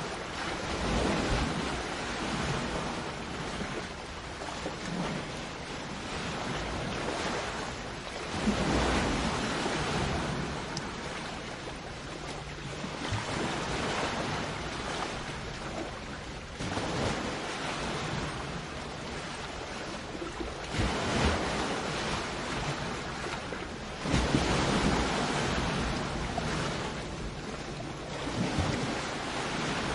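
Sea waves breaking and washing up a shore, the surf swelling in a fresh surge every few seconds over a steady wash.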